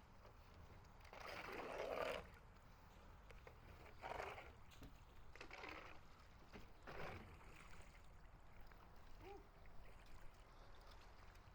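Faint kayak paddle strokes in water: four soft, irregular swishes and splashes, the first about a second in and the loudest.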